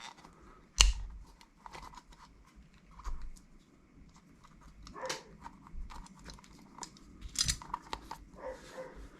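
A belt hole punch being squeezed through a soft rubber RC crawler tyre to make a vent hole, giving scattered clicks and handling noises. The loudest is a sharp click about a second in.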